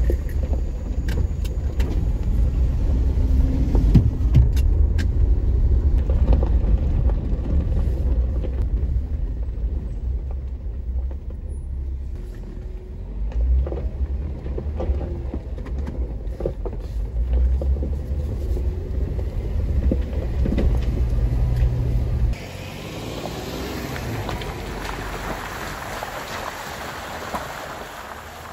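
Jeep Wrangler driving on a dirt road, heard from inside the cab: a steady low rumble of engine and tyres with scattered knocks and rattles. About 22 seconds in it cuts to the Jeep heard from outside, its tyres hissing and splashing through mud puddles.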